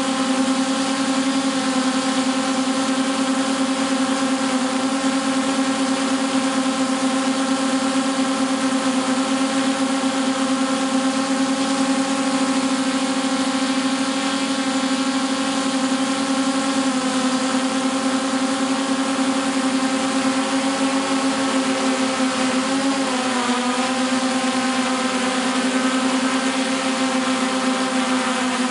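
Drone's electric motors and propellers humming steadily, as picked up by the camera carried on board. The pitch shifts slightly a little past halfway and wobbles again about four-fifths of the way through as the motors change speed.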